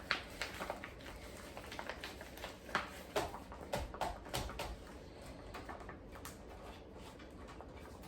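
Scattered soft taps, clicks and rustles of food containers and bags being handled, at irregular intervals.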